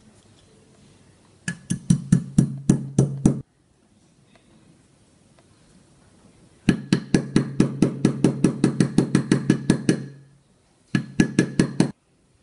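Three runs of rapid, evenly spaced clicks, about six a second, each run with a low hum under it; the middle run is the longest, about three seconds.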